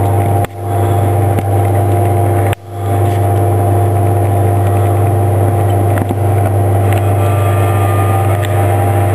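The Super Guppy's electrical inverters running just after switch-on: a steady electrical hum with several steady tones above it. The sound drops out briefly twice, about half a second and two and a half seconds in, and comes straight back.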